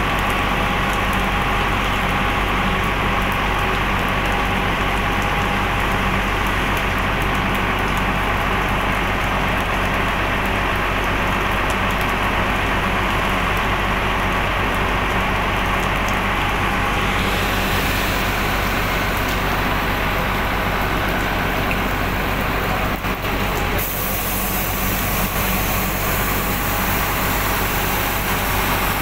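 An engine running steadily at idle, a continuous low hum under a steady rush of noise.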